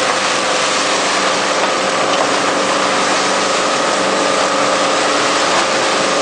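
Automatic sack-opening machine running: a steady, loud mechanical hum with a hiss over it and a few held tones, unchanging throughout, while granular material pours from the cut sack into the hopper.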